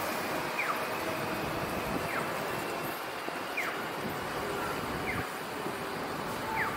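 City street and traffic noise with a pedestrian crossing signal's electronic chirp: a short falling tone that repeats evenly about every second and a half.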